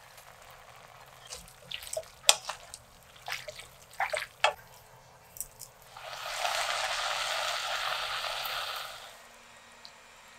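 Wooden spatula knocking and scraping in a nonstick pan as udon is stirred into a tomato chicken sauce, a dozen or so sharp taps. About six seconds in, the sauce sizzles and bubbles steadily for about three seconds, louder than the taps.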